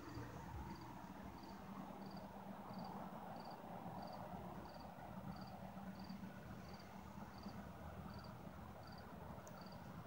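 A cricket chirping steadily, about three chirps every two seconds, over a faint low background hum.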